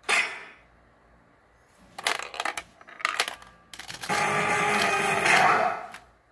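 RoboCop pachinko machine's electronic sound effects as its digit reels spin: a sharp sting that dies away within half a second, a short lull, then a few brief bursts, and from about four seconds a loud sustained run of effects with steady tones that fades out just before the end.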